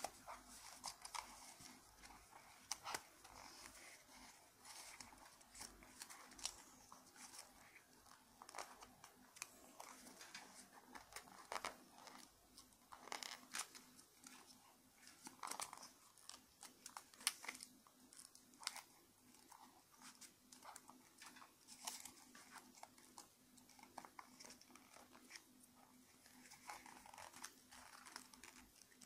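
Origami paper being folded and creased by hand, close to the microphone: an uneven run of soft crinkles and crackles with no steady rhythm.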